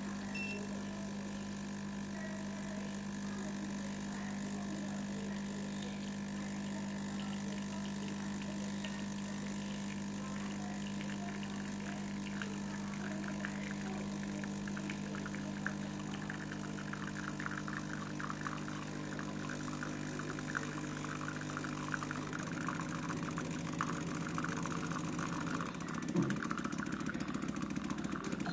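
WPM KD-320VP espresso machine's pump humming steadily while pulling a shot, with a crackly spitting of espresso streaming into the cup that grows through the second half. The hum changes about two-thirds of the way through and cuts off at the end.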